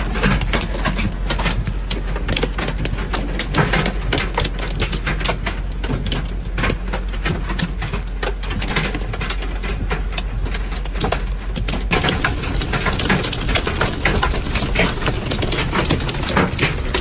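Hailstones pelting a car's roof and windshield, heard from inside the cabin: a dense, fast, irregular clatter of small hard impacts over a steady low rumble.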